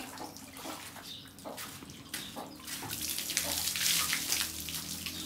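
Water dripping off a goat onto a brick floor, then, from about two seconds in, water poured over it from a plastic jug, splashing onto the bricks.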